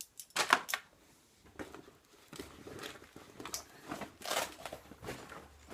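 Gear being handled and rummaged through in a backpack: a run of irregular short rustles, scrapes and crinkles of fabric and plastic items.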